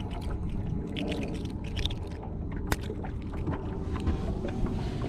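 Steady low rumble of a fishing boat on the water, with scattered small clicks and taps and one sharper click a little past halfway.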